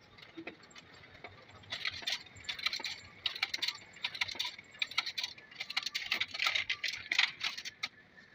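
Canon photocopier's stapling finisher at work: rapid, irregular clicking and rattling as copied sheets are fed out onto the output tray and the set is stapled. It starts about two seconds in and stops shortly before the end.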